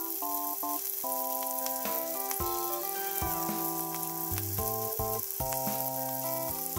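Pre-boiled scallops frying in hot oil in a frying pan, the oil sizzling steadily. Background music of held, changing notes plays over it.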